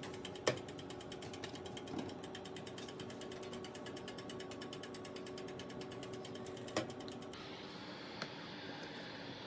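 Toaster oven's mechanical dial timer ticking rapidly and evenly as it counts down a 20-minute toast, with a faint steady hum under it and a couple of sharper clicks. The ticking cuts off abruptly near the end.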